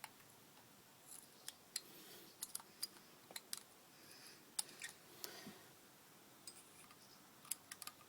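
Light, irregular clicks and ticks of small metal and plastic parts being handled and adjusted as an RC car ball differential is tightened and set, about a dozen clicks in all.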